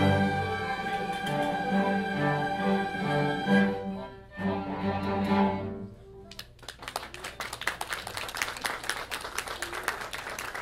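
Youth string orchestra with flutes playing the final bars of a piece and ending on a held chord about six seconds in, followed by audience applause.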